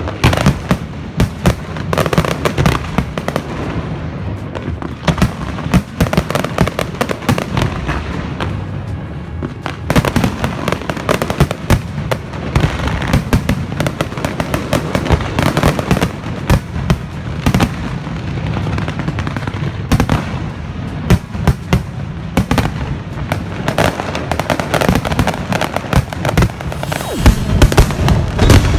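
Aerial fireworks bursting in rapid, dense succession: a continuous barrage of sharp bangs and crackles with many shells going off close together.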